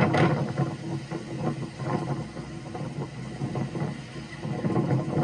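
Storm wind rushing and buffeting the microphone as a tornado approaches: a steady low rumble with gusts, the strongest right at the start.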